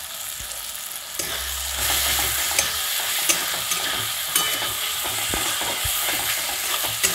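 Chopped onions, tomatoes and green chillies sizzling in mustard oil in a metal kadai while a metal spatula stirs and scrapes the pan with scattered light clicks. The sizzle grows louder about a second in, once the stirring starts.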